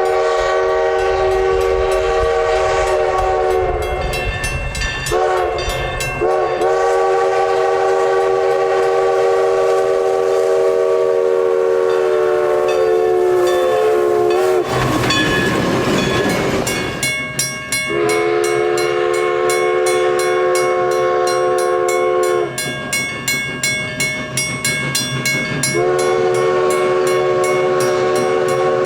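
Multi-chime steam locomotive whistle sounding a chord of several notes: a long blast, two short toots, a long blast of about eight seconds, then after a brief rushing hiss, two more long blasts.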